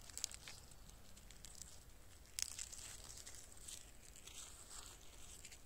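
Clear plastic grafting tape being peeled and unwound from a graft: faint crinkling and crackling, with a sharper crackle about two and a half seconds in followed by a couple of seconds of rustling.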